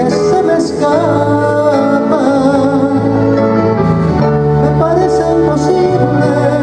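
A live band playing a slow ballad, with a man singing the lead melody into the microphone.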